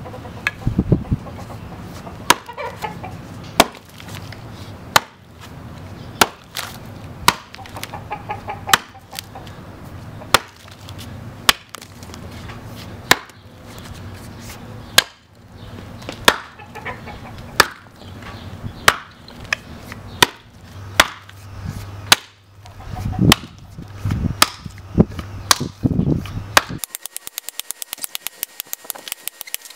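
Small forest axe chopping into a black walnut stump: a steady run of sharp wooden chops, roughly one a second, as a notch is cut.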